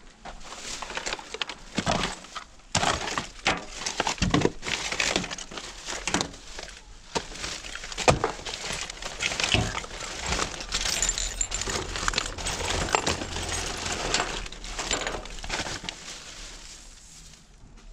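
Rummaging through discarded rubbish: a steady run of rustling broken by many sharp clicks and clinks, as if glass and hard items knock together while they are moved.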